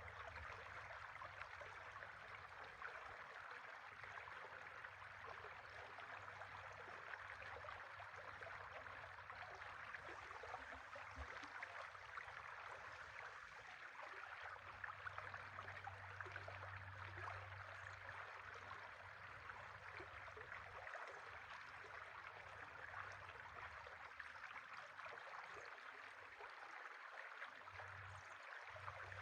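A river flowing: a faint, steady rush of running water. A low hum comes and goes underneath.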